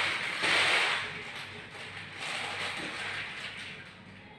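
Water poured from a plastic measuring cup into a plastic jar twice, the first pour louder and briefer, the second longer and softer.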